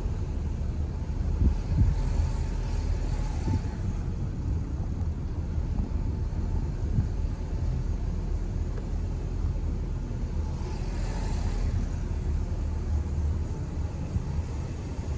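Car driving on residential streets: steady low road and engine rumble with small bumps, and twice a swell of tyre hiss, about two seconds in and again near eleven seconds in.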